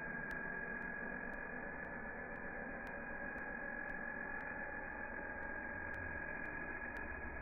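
Radio-controlled helicopter hovering low and slowly descending: a steady high whine over a constant hiss.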